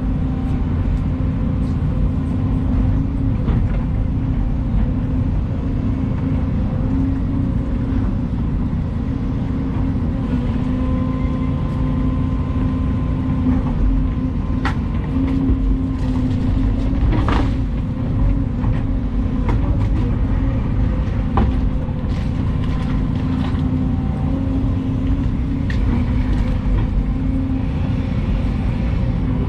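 Volvo EC220 excavator's diesel engine running steadily with a constant low hum, with a few sharp knocks from the machine in the second half.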